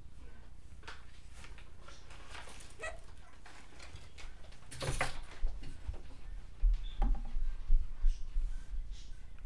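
A baby's brief vocal sounds: a faint squeak about three seconds in and a short louder squeal about five seconds in, then soft low thumps and handling noise in the second half.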